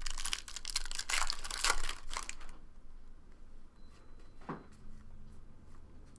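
Wrapper of a football trading card pack being torn open and crinkled: a burst of tearing and crumpling lasting about two and a half seconds, then only faint handling noises.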